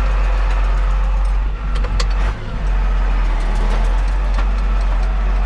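Tractor diesel engine running steadily, heard from inside the cab while it tows a loaded dump trailer, with a few knocks and rattles about two seconds in.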